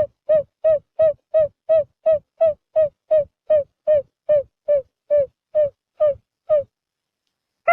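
Quail calling: a steady run of short, identical notes that dip slightly in pitch, about three a second, stopping about a second before the end.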